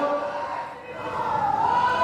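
A crowd chanting together in long drawn-out shouts, dipping briefly a little under a second in and then rising again.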